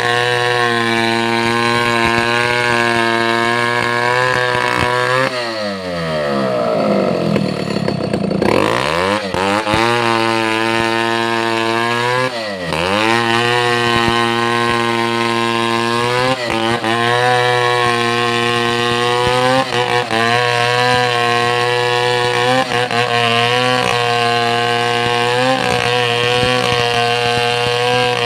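Chainsaw engine running at high revs. About five seconds in the throttle is let off and the engine slows steeply toward idle, then it revs back up a few seconds later. It dips again briefly once more before holding high revs to the end.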